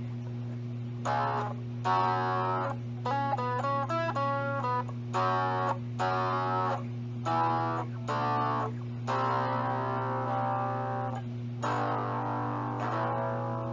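Electric guitar played through a Stage Right 5-watt amp driven by a NUX Horseman overdrive pedal: short chords with gaps, a quick run of single notes, then longer ringing chords. A steady low hum runs underneath with a washing machine going.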